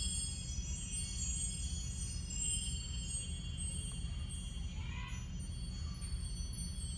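A metal percussion instrument ringing with many high tones that hang on and slowly fade after being struck.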